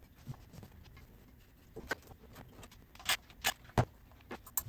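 Quiet handling noise: a few scattered sharp clicks and light taps as hands work the hose off the thermostat housing and reach onto the engine's valve cover.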